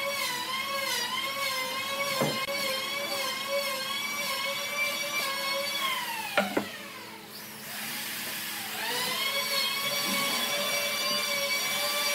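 An electric motor whining steadily with a slight waver. About six seconds in its pitch falls as it slows, and about two seconds later it climbs back up to speed. Two light knocks sound, one about two seconds in and a louder one a little after six seconds.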